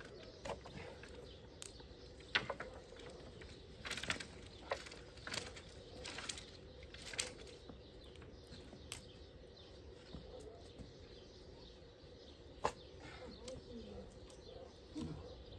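Scattered sharp knocks and taps of thin wooden poles being handled and set upright, the loudest about two and a half seconds in and again near the end, over a faint steady hum, with a few faint bird chirps.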